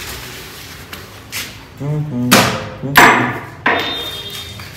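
A few sharp metallic knocks and clanks, the loudest about three seconds in, the last one leaving a short ringing tone. A brief voice sound comes just before the first knock.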